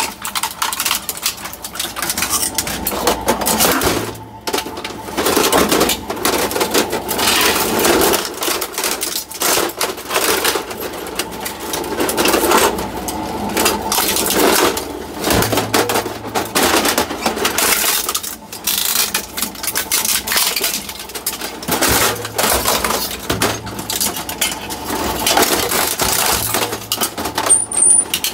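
Industrial shear shredder's hook-toothed cutter discs crunching through plastic printers: a dense, irregular run of cracking, snapping and clattering plastic, with a brief lull about four seconds in.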